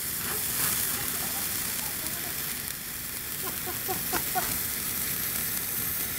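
Lit handheld firework burning with a steady spraying hiss and light crackle.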